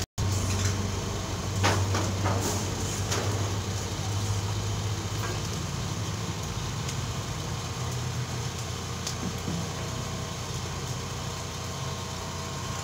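A steady low engine hum from nearby machinery, with a few short knocks about two to three seconds in.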